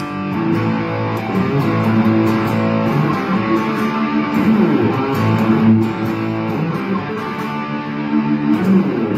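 ESP LTD EC-256 electric guitar on its bridge humbucker, played overdriven through a Supro amp: a continuous rock riff of chords and single notes, ringing off at the end.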